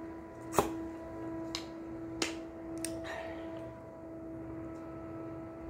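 A plastic drink bottle being handled and set down: a few sharp clicks and knocks, the loudest about half a second in, over a steady hum.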